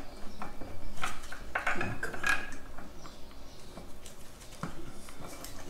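Light metal clicks and clinks as the outer wheel bearing is worked by hand into a greased front wheel hub, busiest in the first couple of seconds, then sparser.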